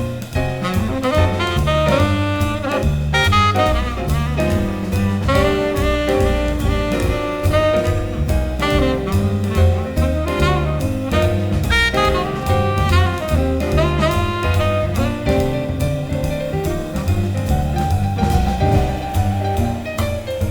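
Instrumental jazz: a saxophone plays the melody over a walking double bass and a drum kit keeping a steady beat.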